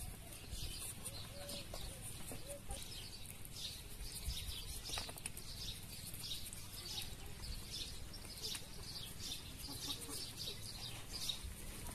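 Small kitchen knife peeling and slicing raw potatoes in short, repeated scraping strokes, about one or two a second. Faint calls of birds or farm animals in the background.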